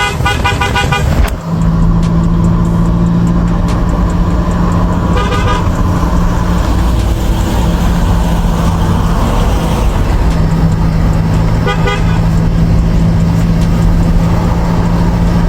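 Hella JP Kuro car horn, newly fitted, sounded in a burst in the first second and twice more in short toots later, over a steady low drone.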